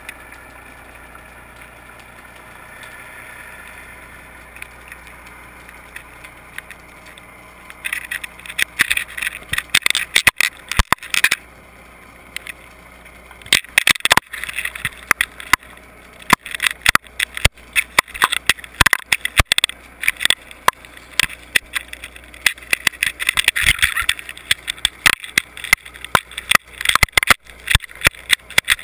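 Muffled underwater sound picked up through a GoPro's waterproof housing: a faint steady whine at first, then from about eight seconds in, many irregular sharp clicks and knocks with rattling and scraping.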